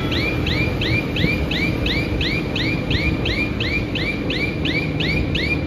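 Steady low rumble of crushing-plant machinery, overlaid by a high, evenly repeated chirp about four times a second.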